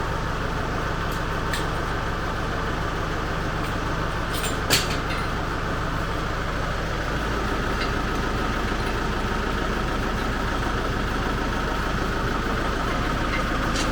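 Ford 1920 compact tractor's three-cylinder diesel engine running steadily. One sharp click or knock about five seconds in.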